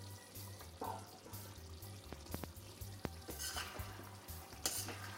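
Chicken curry in thin coconut milk cooking in a kadai and being stirred with a spoon: sizzling with scraping strokes and a couple of light clinks of the spoon against the pan.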